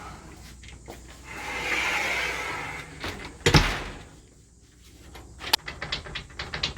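Entrance screen door sliding along its track and banging shut, followed by a series of light clicks and rattles.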